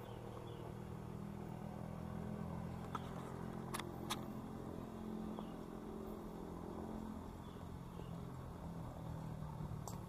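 A steady low engine hum, like a motor running nearby, strongest through the middle, with three short sharp clicks about three to four seconds in.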